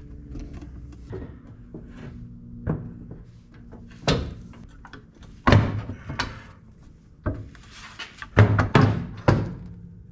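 Background music under a series of about six sharp knocks and thunks, the loudest about halfway through and near the end, from the onboard charger and its steel mount being fitted in place under the truck.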